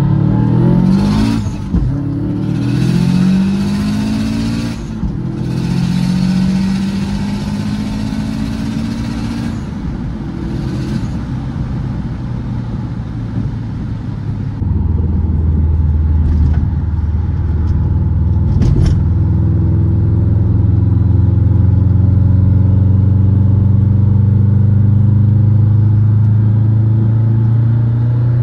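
Subaru WRX's turbocharged flat-four engine heard from inside the cabin, pulling hard through the gears: its pitch climbs, drops at each shift and climbs again, with a high hiss rising and falling under boost. About halfway through it settles into a steady low drone at cruise.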